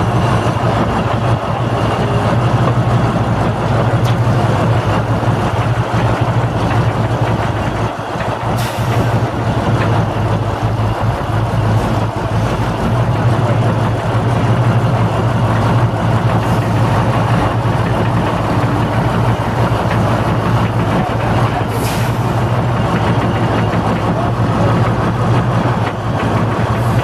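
Heavy construction-machine engines running steadily with a deep, constant hum. Two brief high hisses come through, about a third of the way in and again near the end.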